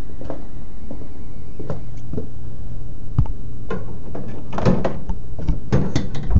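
Handling noise from a moving camera: a steady low rumble with scattered knocks and clicks, and two clusters of louder knocks and clatter, one a little past the middle and one near the end.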